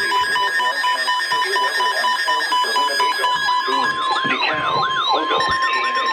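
Several weather alert radios sounding their alarms together: rapid beeping at a few different pitches. About four seconds in, a steady single-pitch alert tone and a fast siren-like warble join the beeping, the warble rising and falling about three times a second.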